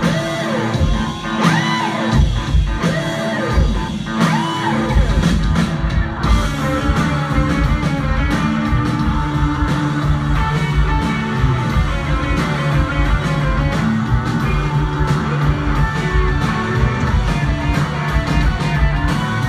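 Rock band playing live, electric guitar to the fore over bass and drums, heard from among the audience in a concert hall.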